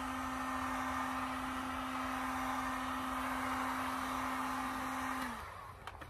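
Corded electric heat gun running steadily, a fan rush with a steady hum, blowing on a badge to soften its adhesive. It is switched off about five seconds in: the hum dips in pitch as the fan winds down, followed by a couple of light clicks.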